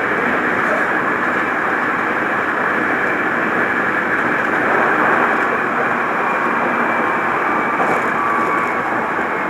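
Steady running noise heard inside a Hankyu Kyoto Line commuter train car moving between stations: the rumble of wheels on the rails, with a faint steady whine over it.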